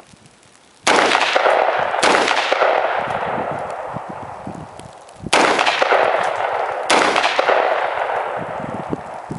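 Four rifle shots from an AR-15-style rifle, a Smith & Wesson M&P15 Sport, firing in two pairs about a second apart. Each shot is followed by a long echo that dies away over the next few seconds.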